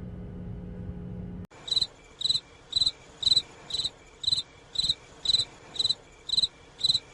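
Cricket chirping sound effect: short high chirps repeating evenly about twice a second, starting suddenly about a second and a half in after a low hum cuts off.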